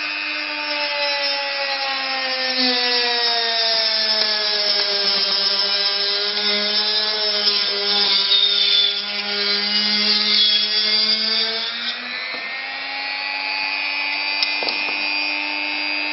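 Handheld high-speed rotary tool with a cut-off wheel whining as it cuts into light modelling foam. Its pitch drops as the wheel bites into the foam about two seconds in, with a scratchy noise from the cut, and rises back about twelve seconds in as the wheel comes free.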